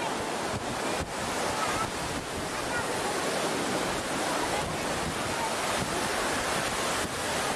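Steady wash of ocean surf on a beach, with wind buffeting the microphone. Faint distant voices come through now and then.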